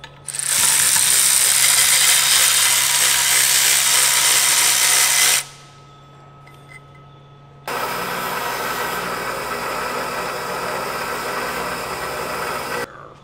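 Two runs of shop power tools cleaning turbocharger parts, each about five seconds long with a short pause between. First a hand-held tool, the louder and hissier run, then a bench grinder that starts and cuts off abruptly.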